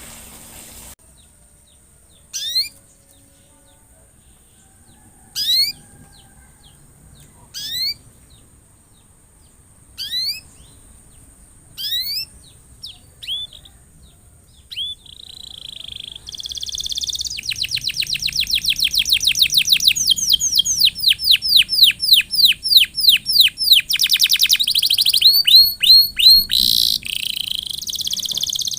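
Domestic canary calling: single short rising chirps every two to three seconds, then about sixteen seconds in, a loud, fast trill of rapidly repeated rising notes that runs for about ten seconds.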